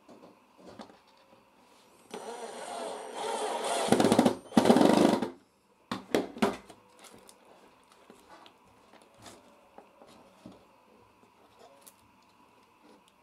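Cordless drill driving screws into a wooden board: the motor runs for about two seconds, growing louder as the screw bites, then a second, shorter and louder run follows after a brief pause. A few sharp clicks come right after.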